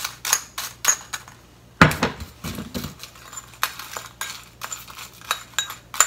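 A spoon clinking and scraping against a ceramic bowl as fried bread crusts are stirred in sugar, in a string of sharp clinks a few times a second. About two seconds in there is one heavier knock, a bowl set down on the countertop.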